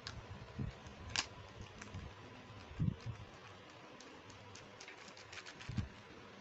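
Small plastic toy pieces being handled and set down: scattered light clicks and taps, with a duller knock about three seconds in and another near the end.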